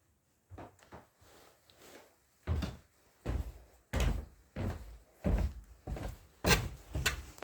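A regular series of knocks or thuds, about three every two seconds, faint at first and louder from a couple of seconds in.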